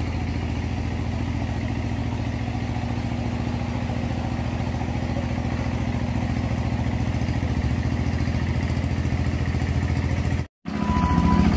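A small engine idling steadily, an even low hum. The sound cuts out completely for a moment near the end.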